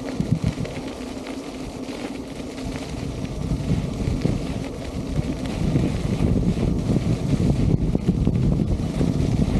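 Wind buffeting the camera microphone while riding an electric unicycle at about 15–17 km/h on a gravel path, a steady low rushing noise that grows louder about halfway through.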